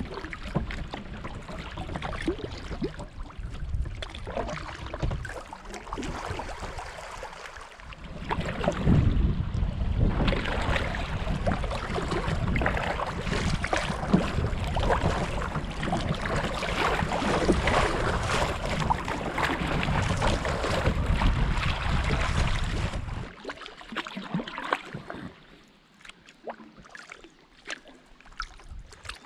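Water splashing and washing around a kayak being paddled down a shallow river, with wind rumbling on the microphone. It is loudest through the middle and drops about three-quarters of the way through to lighter, scattered drips and splashes.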